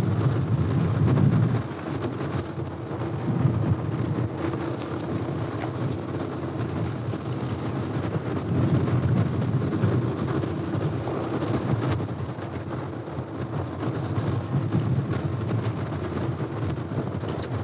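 Fishing boat's engine running steadily, a low rumble with wind noise over it.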